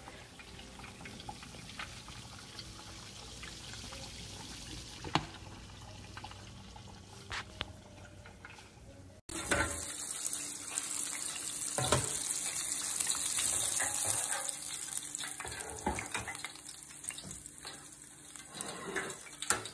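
Low, quiet background with a few light clicks at first; then, about halfway through, hot oil in an electric deep fryer sizzling and crackling steadily around breaded chicken tenders frying in the basket. A few knocks and clicks come from the fryer's lid and basket being handled.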